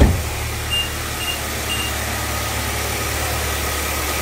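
2020 Nissan Altima's four-cylinder engine idling steadily, just refilled with fresh oil. A loud thump comes at the very start, and three short high beeps sound about half a second apart within the first two seconds.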